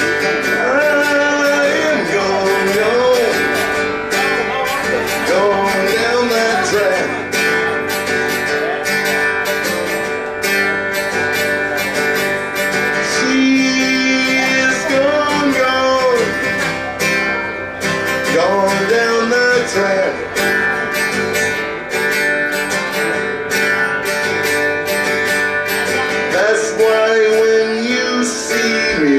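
Live band music: an instrumental passage with a gliding melodic lead over strummed guitar and a steady rhythm.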